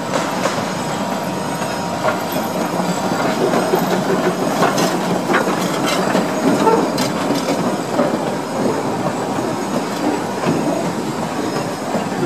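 A 3 ft narrow-gauge coal-fired steam locomotive running past close by, then its open-air coaches rolling past, with a steady rumble and scattered clicks of wheels over the rail joints.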